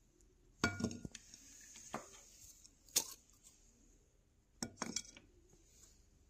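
Ceramic plates and dishes clinking and knocking as they are handled. There are a few short, sharp clinks, some with a brief ring, and the loudest comes about three seconds in.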